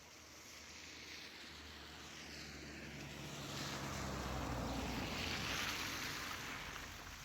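A motor vehicle passing: a low engine hum and tyre hiss that grow louder, peak about five seconds in, then fade.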